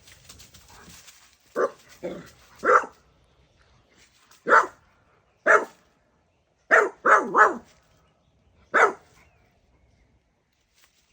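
A dog barking, nine short barks in irregular bursts, including a quick run of three about seven seconds in.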